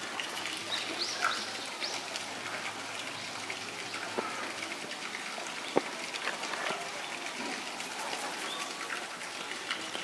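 Steady outdoor hiss with a few short bird chirps about a second in and scattered faint clicks.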